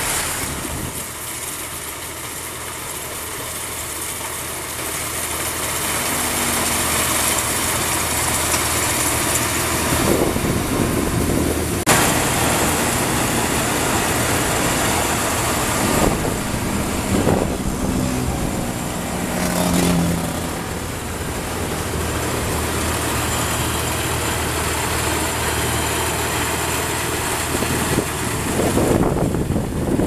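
Rice combine harvester running in the crop: a steady engine under load with the hiss and rattle of its cutting and threshing machinery, growing louder as it comes close. A sharp knock about twelve seconds in, and a few more clatters soon after.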